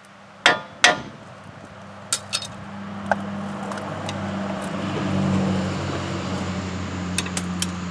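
Sharp metal knocks and clinks as the wheel hub assembly is worked and forced into position on the axle, with two loud knocks about half a second and one second in and lighter clinks after. A steady low hum runs beneath.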